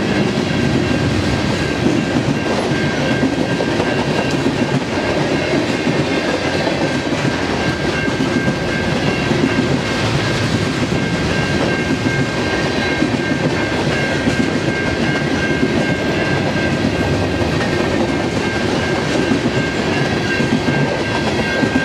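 Loaded grain train's covered hopper cars rolling past, wheels clicking and rumbling over the rails, with a steady high ringing tone over it.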